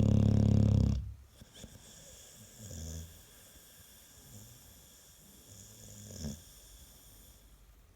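American Staffordshire Terrier snoring: one loud, low snore that ends about a second in, then two much fainter breaths a few seconds apart.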